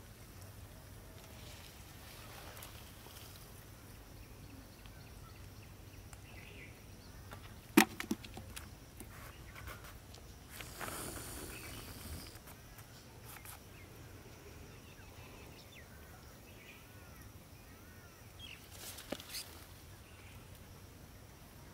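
Rustling and handling noises from a person moving through thick leafy pond-side plants, with one sharp click about eight seconds in and a few smaller clicks near the end.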